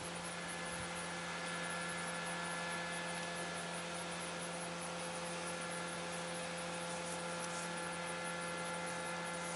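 A steady hum made of several fixed tones over an even background hiss, with no sudden sounds.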